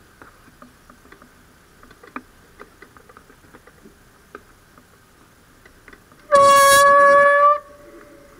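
A single loud horn blast, one steady pitched tone lasting about a second and a half, starting about six seconds in and cutting off sharply. Before it there are only faint scattered clicks.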